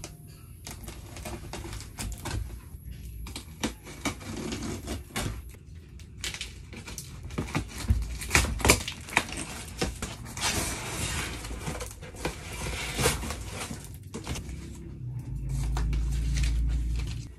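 Hands unpacking a cardboard shipping box: packing tape peeled off and plastic wrapping and cardboard crinkling and rustling, in an irregular string of crackles and taps. A low rumble for about two seconds near the end.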